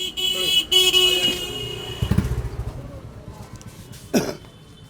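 A vehicle horn honking in one long, steady blast that breaks off briefly about a second in and stops after about two and a half seconds. Street traffic rumbles underneath.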